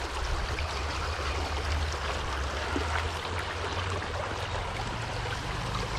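Small stream's water running steadily, an even rushing with a low rumble underneath.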